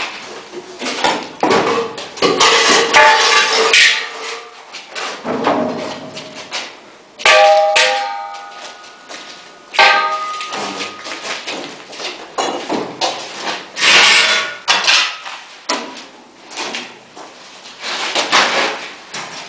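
Long steel rail sections of an automatic wall-plastering machine clattering and clanking as they are handled and laid on a concrete floor. The sharpest strikes, a little after 7 seconds and again at about 10 seconds, ring on briefly like struck metal.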